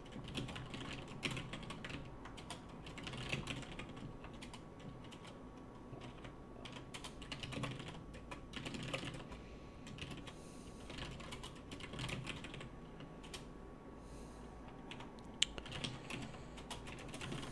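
Typing on a computer keyboard: irregular bursts of keystrokes, with one sharper, louder click near the end.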